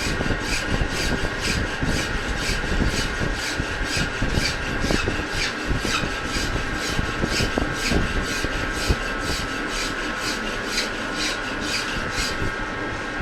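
Lathe turning a road roller's rear axle: the cutting tool scrapes the metal with an even beat of about two to three scrapes a second, over a steady machine whine that cuts off near the end.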